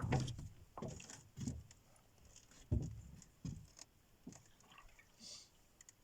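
A series of soft, irregular knocks and thumps, about six in all, the loudest a little under three seconds in, with faint rattles in between.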